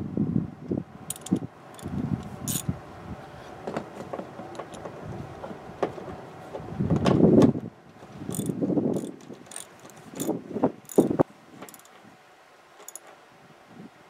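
Irregular metallic clicks, clinks and clunks of seat belt anchor hardware being handled and a ratchet wrench turning the belt's lower anchor bolt, with louder knocks about seven and eleven seconds in.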